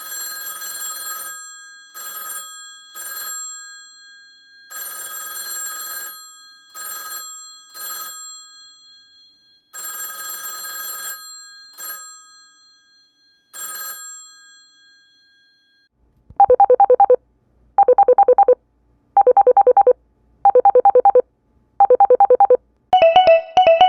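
Classic telephone bells ringing, several different rings in turn. First a bright metal bell rings in irregular bursts of varying length with lingering tails; about two-thirds of the way through a lower-pitched ring takes over, trilling in six evenly spaced bursts of about a second each; just before the end a third, higher, fast ring begins.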